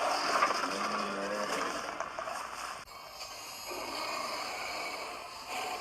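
Tyrannosaurus rex growl sound effect, a low, rough growl that cuts off abruptly about three seconds in and gives way to a different, noisier growl.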